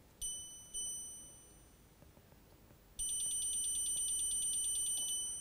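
Electronic key beeps from the Navien NCB700 boiler's control panel. Two single beeps about half a second apart, then, about three seconds in, a fast run of repeated beeps for a little over two seconds as the arrow button is held, stepping the maximum supply temperature set point down to 60 °C.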